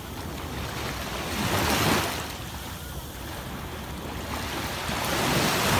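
Small waves breaking and washing up a sandy beach in the shallows, the surf swelling twice, about two seconds in and again near the end.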